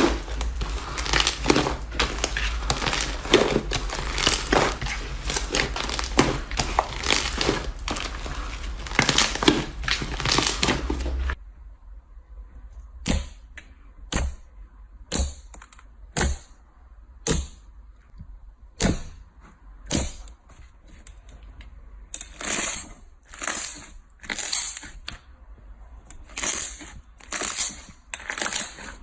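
Slime being squeezed and kneaded by hand, a dense run of crackling air-bubble pops. About eleven seconds in it changes abruptly to separate squishy presses, roughly one a second, coming a little faster near the end.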